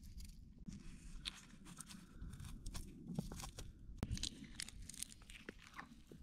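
A person eating: food being torn apart and chewed, with a string of small crunching clicks.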